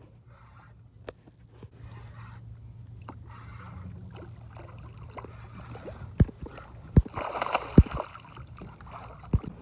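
A hooked bluefish thrashing and splashing at the surface beside a boat, the splashing loudest for about a second around seven seconds in, with several sharp thumps and a steady low hum underneath.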